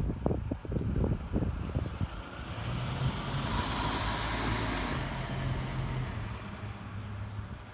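Fairchild C-26B Metroliner's twin Garrett TPE331 turboprops climbing out overhead: the engine and propeller noise swells to a peak about four seconds in and then fades, over a steady low propeller drone. A gusty low rumble is heard in the first two seconds.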